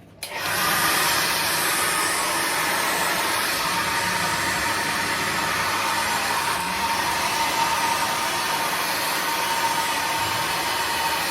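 Hair dryer switched on and blowing steadily: a loud, even rush of air with a faint high whine over it.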